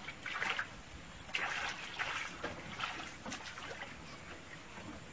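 Shallow muddy water splashing and sloshing in several short bursts, as someone wades and crocodiles move in the water.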